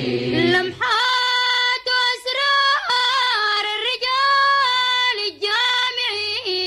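Solo female voice singing a line of an Arabic Sufi devotional song (inshad) in long, ornamented, melismatic phrases. Lower voices singing the refrain end within the first second.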